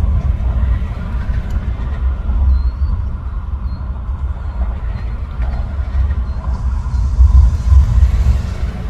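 Continuous low rumble of road traffic, rising and falling in loudness, with a few faint high chirps above it.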